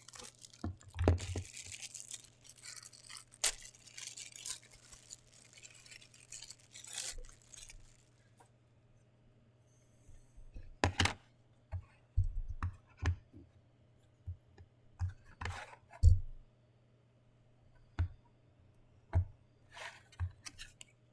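Packaging being unwrapped, with crinkling and tearing for several seconds, then scattered knocks and clicks of the box and figure being handled and set down.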